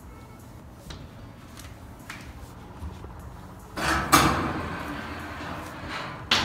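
Wire-track rolling ball sculpture in an acrylic case: faint scattered clicks, then from about four seconds in a louder rolling, rattling rush with sharp clacks that slowly fades, and more clacks near the end.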